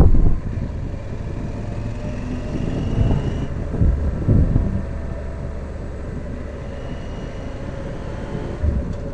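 Motorcycle running along at road speed, its engine rumble mixed with wind noise on the microphone. A gust of wind hits the microphone at the start, and a faint rising whine comes about two to three seconds in.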